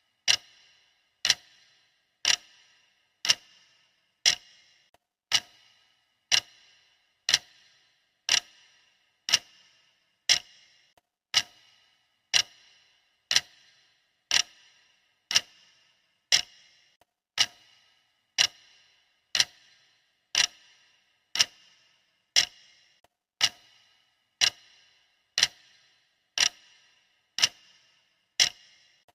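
Clock ticking steadily, one sharp tick a second, each with a brief ring.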